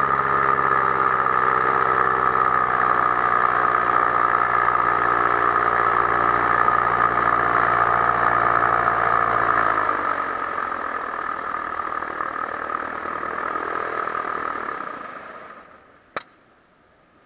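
Powered paraglider's paramotor engine and propeller running steadily, then throttled back about ten seconds in, its pitch sliding down and the sound getting quieter. The remaining engine sound fades out a few seconds before the end, and a single sharp click follows.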